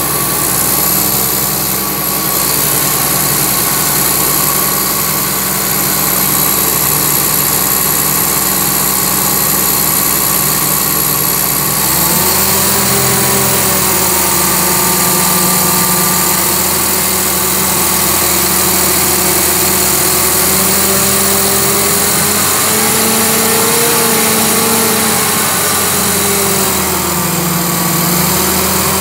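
Engine of a borewell rig's air compressor running steadily at about 1,180 rpm, then speeding up sharply about twelve seconds in and holding near 1,700 rpm with slight wavers in pitch.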